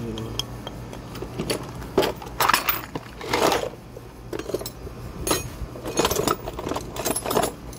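Loose metal hand tools and sockets clinking and rattling against each other as they are handled, in irregular short bursts.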